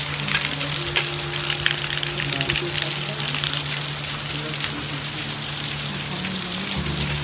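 Heavy rain in a storm, a dense patter of drops hitting a dome tent and the ground around it, with a steady low hum underneath.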